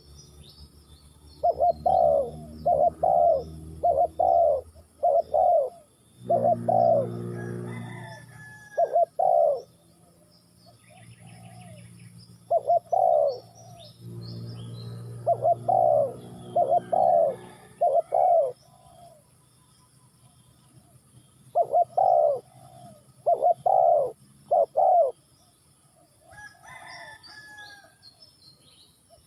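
Spotted dove cooing in repeated phrases of three to five notes, with pauses between phrases. A low steady hum sits under some of the phrases, and faint high chirps from other small birds come and go.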